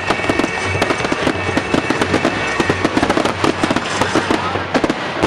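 Fireworks display going off in a rapid, dense barrage of sharp bangs and crackles, with music playing underneath; the bangs thin out right at the end.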